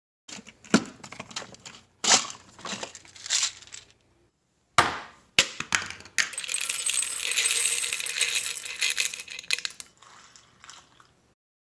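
Ibuprofen tablets poured from a plastic bottle rattle and clatter into a ceramic bowl for about four seconds, in the second half. Before that come several separate short knocks and clatters.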